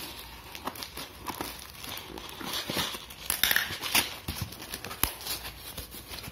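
Cardboard shipping box being cut with scissors and torn open by hand: irregular snips, rips and crinkling of cardboard and packing tape.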